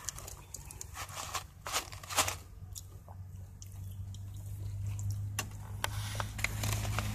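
Chewing crunchy fried chicken close to the microphone: irregular crunches and wet mouth clicks. Under it, a steady low hum grows louder toward the end.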